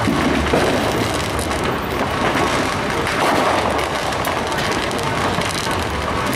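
Many distant consumer fireworks popping and booming at once, merging into a steady crackling din.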